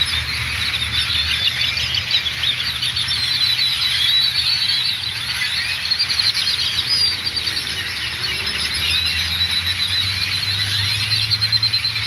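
A huge flock of small birds massed in a tree, hundreds of high, squeaky calls and chirps overlapping into one unbroken chatter, with a steady low hum underneath.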